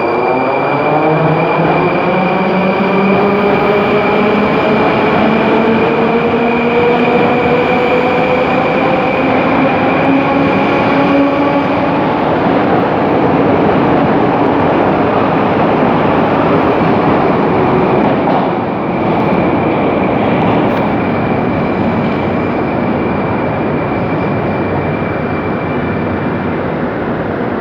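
Rusich articulated metro train (81-740/741) pulling out of the station: its traction motors whine in several tones that rise together as it accelerates over the first twelve seconds or so, over a loud, steady rumble of wheels on rail that eases a little after about eighteen seconds.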